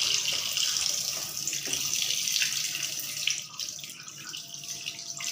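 Tap water running into a kitchen sink and splashing over a pile of catfish as they are turned by hand, with a few small knocks. The flow sounds lighter after about three and a half seconds.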